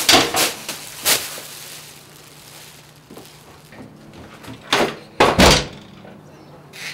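Glass-paned front door of a house slammed shut: two loud bangs a little past halfway, after a few sharper knocks near the start.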